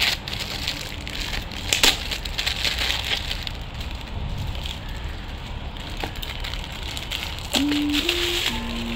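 Metallic foil gift wrap crinkling and tearing as it is pulled off a small box, with sharp crackles. Background music comes in near the end.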